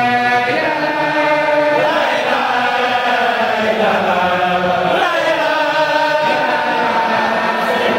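Congregation of men chanting a devotional chant together in unison, long held notes gliding slowly up and down in pitch.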